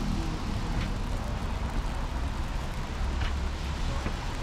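Steady city street noise in the rain: a low rumble of traffic under an even hiss of rain.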